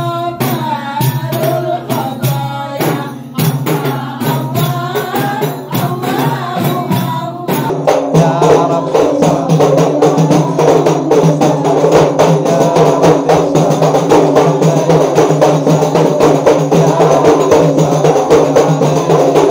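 Terbangan (rebana) frame drums beaten in rhythm under a group of women singing. About seven and a half seconds in it changes to louder, faster and denser drumming, with the voices massed behind it.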